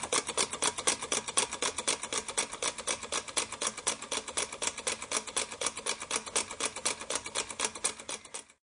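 Homemade drink-can engine running, its wire crankshaft and linkage clicking in a steady rhythm of about five beats a second; the sound cuts off suddenly near the end.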